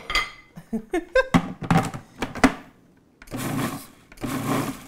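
A few short knocks and clicks, then two short pulses of a Breville Sous Chef food processor's motor and blade, about three and four seconds in, each under a second. The pulses mix melted butter into graham cracker crumbs.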